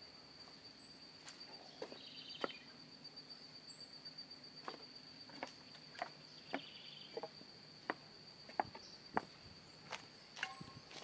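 Footsteps, a scattering of short knocks and scuffs roughly once a second, over a steady high-pitched insect trill.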